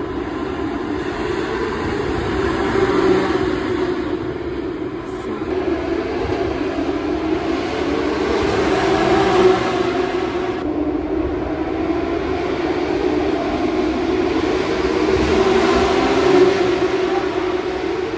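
Formula 1 cars running at high revs on the circuit: a loud, continuous engine drone that grows louder a few times as cars go by.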